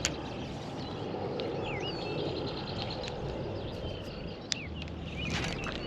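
Outdoor pond-side ambience: a steady low rumble with small birds chirping and trilling now and then, and a sharp click at the start and another about four and a half seconds in.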